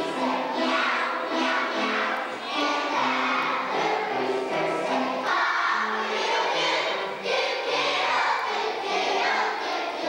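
A choir of young children singing a song together in unison.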